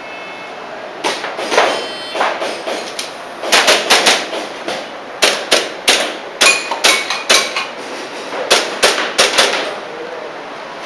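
Airsoft pistol firing quick strings of shots, two to four at a time with short pauses between, after a faint short beep at the start.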